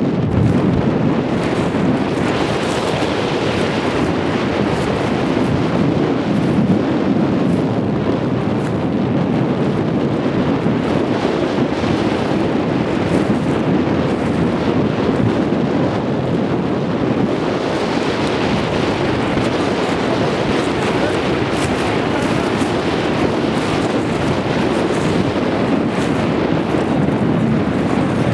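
Wind blowing across the camera microphone: a steady, loud rushing noise.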